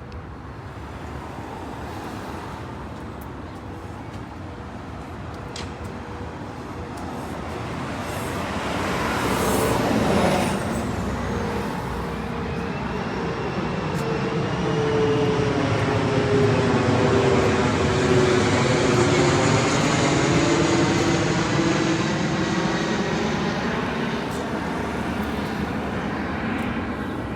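Airplane flying overhead. Its noise builds over about ten seconds and stays loud, with a whine that slowly drops in pitch as it passes.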